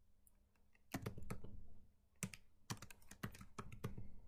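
Typing on a computer keyboard: quiet for about a second, then runs of quick keystroke clicks in short clusters as a line of code is entered.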